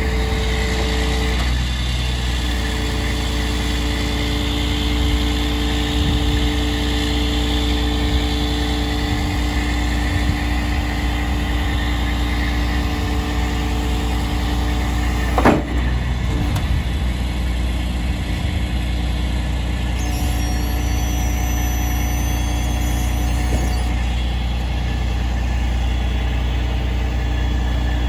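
Kenworth truck's engine running steadily, driving the hydraulics of an A.R. Williams knuckle boom crane as the boom is folded down, with a steady whine under the engine hum. A single sharp clunk about halfway through, and a high squeal for a few seconds later on.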